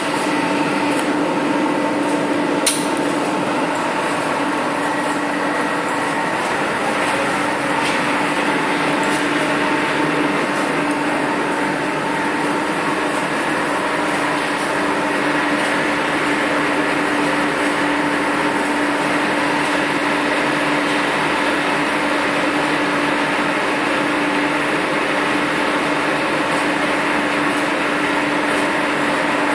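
Steady hum and air noise of a tape casting machine's running equipment, with a constant low tone underneath, and a sharp click about three seconds in.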